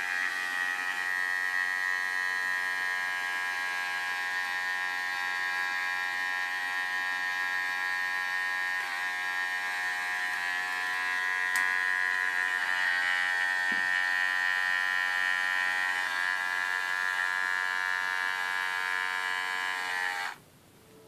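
Remington HC5800 cordless hair clipper's motor running with a steady high-pitched buzz, then switched off near the end, stopping abruptly.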